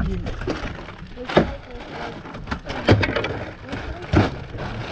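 Water slapping against a small fibreglass boat's hull over a steady rush of wind and water, with three sharp, bass-heavy slaps about a second and a half apart.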